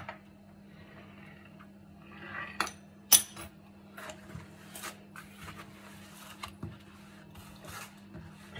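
Metal scissors snipping through a dry yufka pastry sheet, then set down on the countertop with one sharp clack about three seconds in. After that the thin, dry pastry rustles and crackles as it is lifted and folded.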